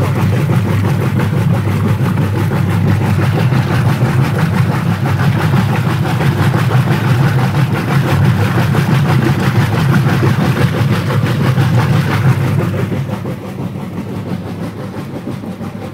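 Whirlpool top-load washing machine agitating a load: the motor and agitator run with a steady low hum while the water churns and sloshes. The sound drops in level about thirteen seconds in.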